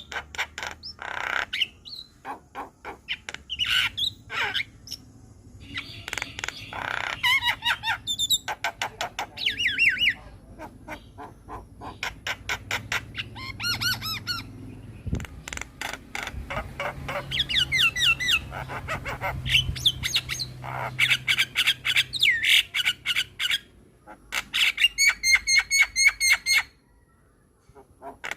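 Javan myna (jalak kebo) singing vigorously: harsh squawks, fast runs of clicking chatter and whistled notes, with a short pause near the end.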